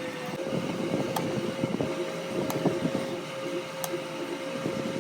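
A machine running with a steady hum, with scattered light clicks.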